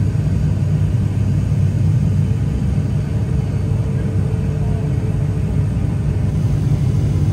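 ATR 42 turboprop engine and propeller heard inside the passenger cabin, right beside the propeller, on approach: a steady, loud low drone that holds level throughout.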